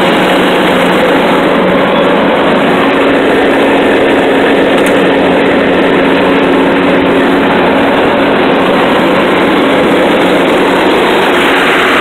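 Riding lawnmower engine running steadily and loudly; its pitch steps up slightly about two seconds in.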